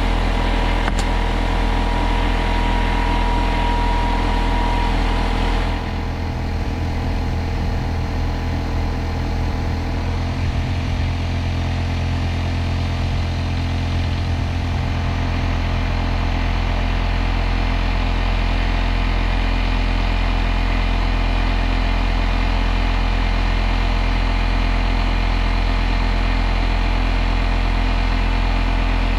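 An engine running steadily at a constant speed, its sound shifting slightly about six seconds in and again around ten seconds.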